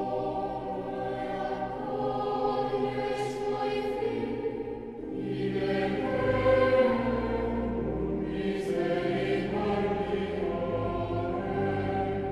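Background music: a choir singing slow, long-held chords.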